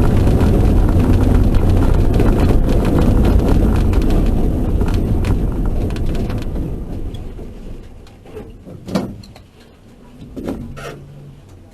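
Car running at speed with heavy engine and wind rumble, fading away over a few seconds as it slows down, followed by a couple of short sharp knocks.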